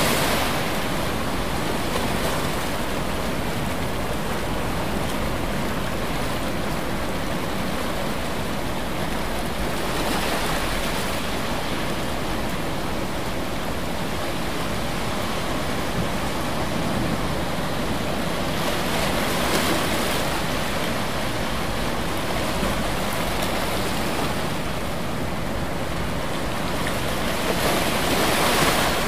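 Steady rushing water noise with no music, swelling a little roughly every nine seconds.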